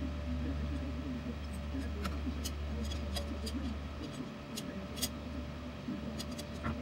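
Scattered sharp metal clicks and taps as hand tools work on a Harken roller-furler drum, over a steady low hum that stops about four seconds in.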